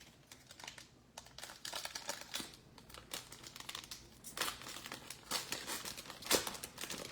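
Trading-card pack wrapper crinkling and tearing as it is opened by hand, in irregular crackles, loudest a little past six seconds in.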